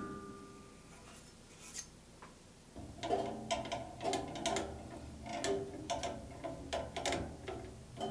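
A run of sharp metallic clicks, each with a brief ring, about two a second, starting a little under three seconds in, from hand work on a Jet 14-inch band saw's upper blade assembly while the blade is being taken off.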